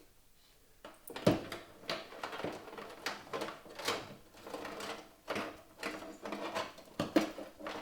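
Irregular clicks, knocks and rattles of a PC case and its parts being handled, starting about a second in, with two louder knocks, one near the start and one near the end.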